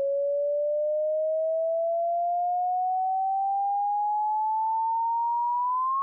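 A pure sine test tone in the right channel only, gliding slowly and smoothly upward in pitch at a constant level, rising about an octave and climbing faster near the end. It is a continuous sine sweep used to check a speaker or headphone for buzz and rattles.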